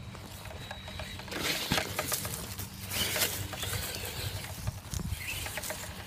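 Tamiya Rock Socker electric RC crawler truck driving over grass and dry fallen leaves: a steady low hum of its motor and gearing, with crunching leaf rustles about every second or two.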